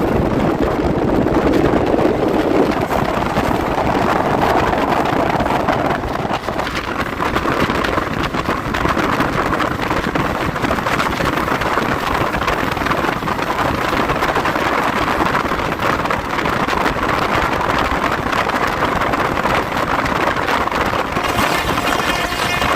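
Train hauled by a WAP-4 electric locomotive running fast, a steady loud rush of wheels and moving air with wind buffeting the microphone. A pitched tone joins in near the end.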